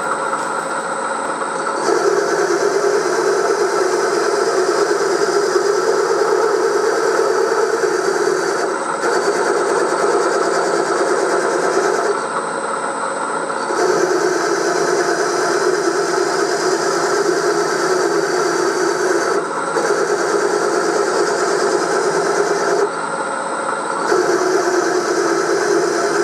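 Milling machine end mill cutting cast iron, a steady running noise with a high whine under it. The louder cutting sound eases off for a second or two about four times, then comes back.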